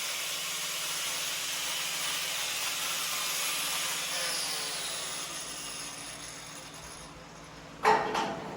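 A steady hiss that fades away over a few seconds, then a single sharp metallic clank with a brief ring near the end.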